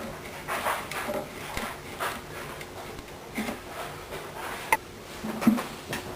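A blade scraping and scoring along the binding and the glued joint of a Gibson L-48 archtop's plywood back, in short strokes about once a second, with a sharp click about three-quarters of the way through.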